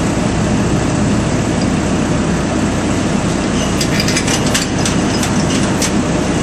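Steady, loud drone of heavy machinery with a constant low hum. From about four seconds in, a quick run of light metallic clicks and clinks from work on the steel line stop apparatus at the valve.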